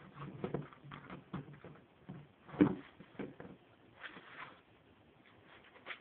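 A tipped-over plastic wastebasket knocking and scraping on a tiled floor and wall as a ferret shoves and wrestles it, in an irregular run of bumps with the loudest knock about two and a half seconds in.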